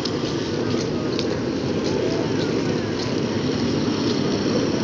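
Several go-kart engines running as the karts drive around the track, a steady drone with a few faint rises and falls in pitch.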